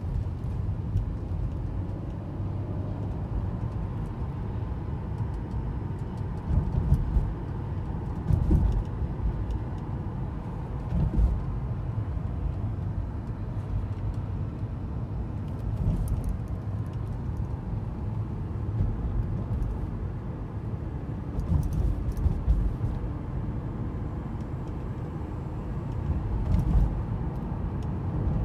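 Mercedes-Benz W124 coupe's M104 straight-six engine running steadily after a cold start, with a few brief louder swells.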